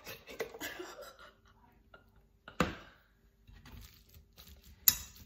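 Kidney beans being mashed by hand in a bowl: soft crunching and squishing, with one sharp knock of the utensil about halfway through and a few sharp clicks near the end.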